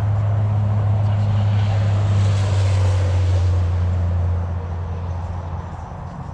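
Fishing boat's engine running at speed with a steady low hum and rushing wind and water, becoming quieter about four and a half seconds in.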